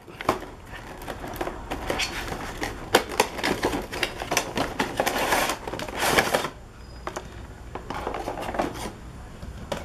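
Cardboard box and clear plastic blister packaging being opened and handled: a busy run of clicks, taps and crinkling, thinning out to quieter handling noises about six and a half seconds in.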